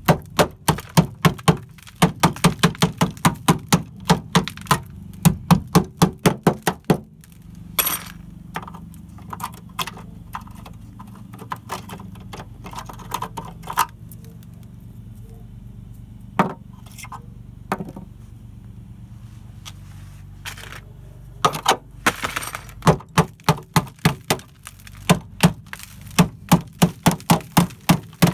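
Hammer blows on the rusted steel door sill of a Chevrolet G20 van, knocking out rotten metal. The strikes come fast, about three or four a second, for the first seven seconds. There are scattered single knocks through the middle, and a fast run of strikes starts again about 21 seconds in.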